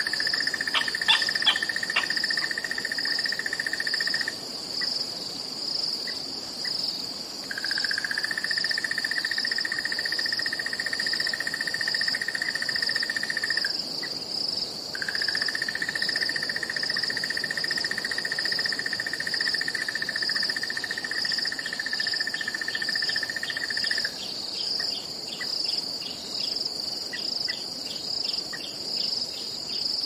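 Crickets chirping in a steady pulsing rhythm, with a second, lower trill that runs for several seconds at a time and breaks off now and then. Rows of quick light chirps come in near the end.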